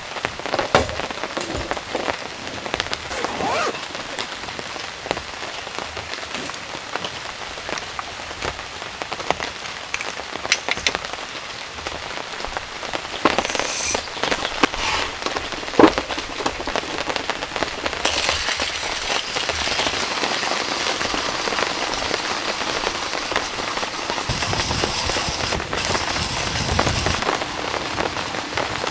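Steady rain with many separate drops striking a surface, growing heavier about two-thirds of the way in.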